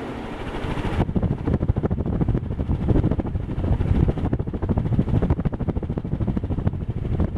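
Kichler Todo 56-inch ceiling fan running, its downdraft buffeting the microphone as a rough, fluctuating rumble that sets in abruptly about a second in.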